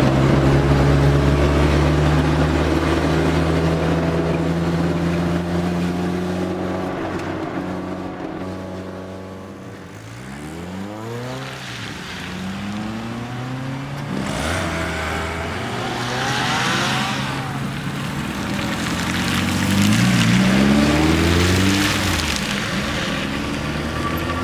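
A car engine heard from inside the cabin, running at steady revs, then fading away about eight seconds in. Then several cars drive past one after another on a wet track, each engine note rising and falling as it goes by, with tyre hiss from the wet surface.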